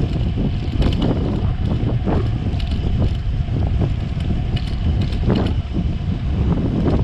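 Wind buffeting the microphone of a chest-mounted action camera on a moving bicycle, a steady loud rumble, with tyre noise on rough asphalt and scattered light clicks and rattles from the CO-OP Cycles CTY 1.1 bike.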